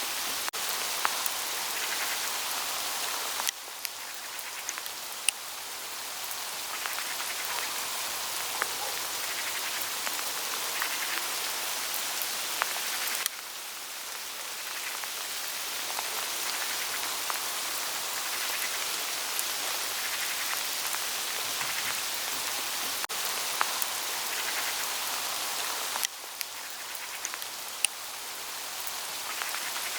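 Hail pattering on autumn foliage: a steady hiss of many small hits with scattered sharper ticks. The overall level drops suddenly three times, a few seconds in, near the middle and near the end.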